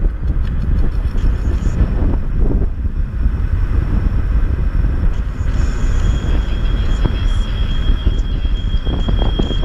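Ride noise on a Kaabo Mantis PRO electric scooter: a steady rumble of wind buffeting the microphone and road noise. About six seconds in, a thin steady high whine joins it.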